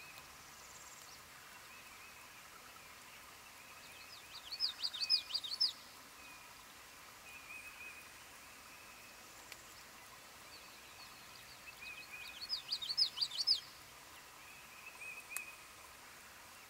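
Common yellowthroat singing two songs about seven seconds apart, each a quick run of repeated high phrases lasting under two seconds. Softer bird calls come in between.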